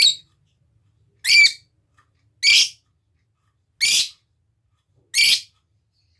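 Lovebird giving five short, shrill calls at an even pace, about one every second and a quarter.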